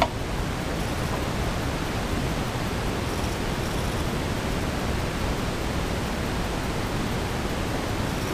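Steady, even hiss of background noise, with one brief click right at the start.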